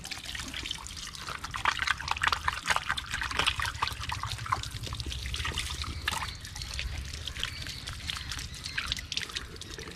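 Water trickling and splashing irregularly as whole tilapia are washed after cleaning, over a low steady hum.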